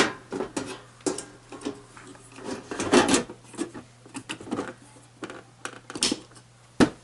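Sheet-metal top cover of an HP ProLiant DL360 G7 server being put back on: a string of irregular metallic clicks and knocks, with a sharp knock near the end, over a steady low hum.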